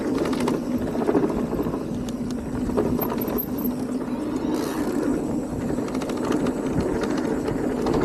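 Wind buffeting an action camera's microphone over the rumble of an e-mountain bike's tyres on a dirt trail, with scattered rattles and clatters from the bike.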